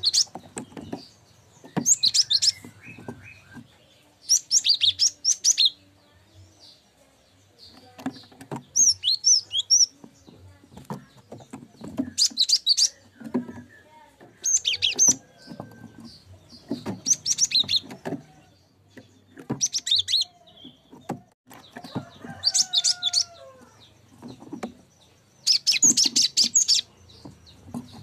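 Cinereous tit (gelatik batu) singing: bursts of rapid, high chattering notes about a second long, repeated every two seconds or so.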